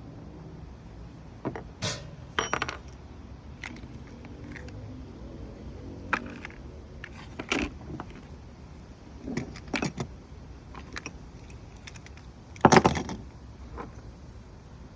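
Small metal objects clinking and clicking as they are handled, in scattered knocks with a louder clatter near the end.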